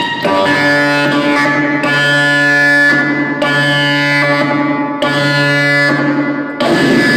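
Noise-music performance: loud, sustained droning tones built from a stack of steady pitches, shifting in blocks about every second and a half. Near the end it breaks into a noisier, rougher texture.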